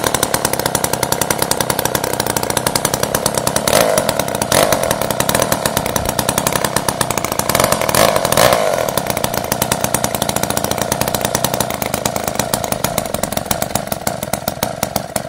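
Vintage JoBu Junior chainsaw's two-stroke engine running, with two brief rises in revs about 4 and 8 seconds in, then dying away right at the end. It is running after perhaps 50 years unused.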